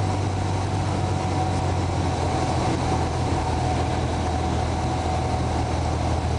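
Cessna 172's single piston engine and propeller running at a steady, unchanging drone.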